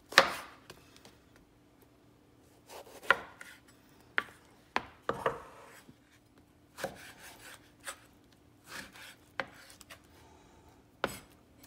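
Chef's knife chopping soft boiled eggplant on a bamboo cutting board: about ten sharp knocks of the blade against the board, at uneven spacing, some close together and some a second or two apart.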